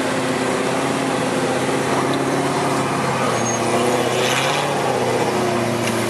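Off-road race car's engine running at a steady speed, with a brief hiss about four seconds in.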